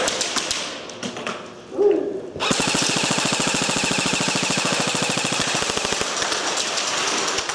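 An airsoft gun firing on full auto: one long rapid burst of evenly spaced shots starting about two and a half seconds in, thinning to a few scattered shots before it stops near the end.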